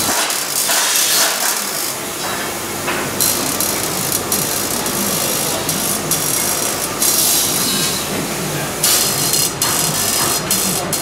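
Automated stylus marking machine engraving serial numbers into golf iron heads: a dense, rapid buzzing chatter of the pin striking metal. It comes in stretches of a few seconds.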